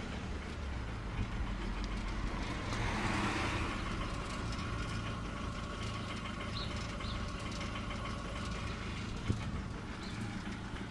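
Jaguar X-Type 2.0d four-cylinder diesel engine running steadily with a knocking/rattling noise from the driver's side of the engine, cause unknown. A swell of hiss about three seconds in, and a single sharp click near the end.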